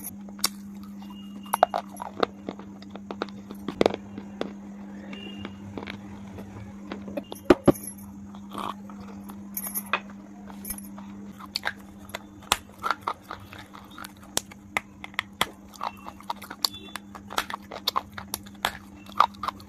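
Close-miked chewing of KitKat chocolate wafer: many crisp, irregular crunches and mouth clicks, loudest about 4 and 7.5 seconds in, over a steady low hum.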